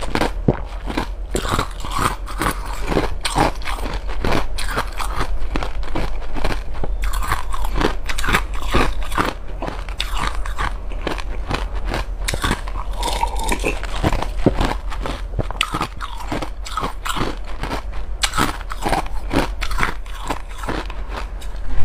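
Close-miked drinking: slurping and gulping a milky drink from a glass, with dense, quick crackly mouth clicks throughout.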